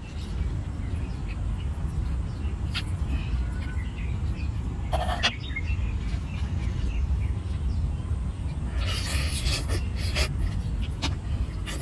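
Cooked crayfish being pulled apart by hand, with a short crackle of shell about five seconds in and a longer wet slurping as the meat is sucked out about nine seconds in, over a steady low rumble.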